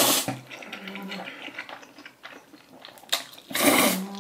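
A person slurping instant jjajang noodles from a bowl: two loud slurps, one at the start and one about three and a half seconds in, with chewing between.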